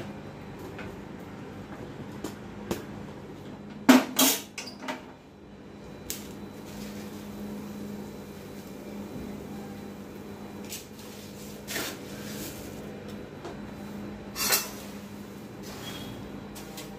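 Steel kitchenware knocking and scraping: a kadhai and spoon clanking against a steel plate as spiced oil is poured and scraped out over puffed rice, with a cluster of loud knocks about four seconds in and a few single knocks after. A steady low hum runs underneath.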